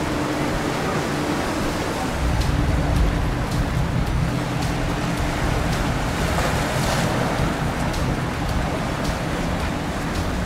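Motorboat engine running steadily under a constant rush of water and wind.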